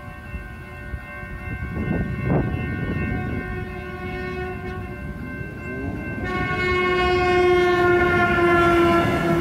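Railroad crossing's electronic bells ringing, then about six seconds in an NCTD Sprinter diesel multiple unit approaching the crossing sounds its horn, a loud held chord that falls slowly in pitch.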